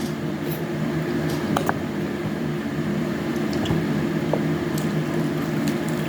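Honey orange peel being torn off by hand, small squishy tearing sounds and light clicks, over a steady low hum.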